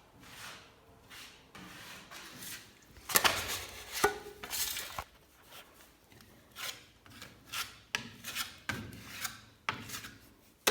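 Putty knife scraping and spreading fast-setting gypsum plaster on a wall in a series of irregular strokes, loudest a few seconds in.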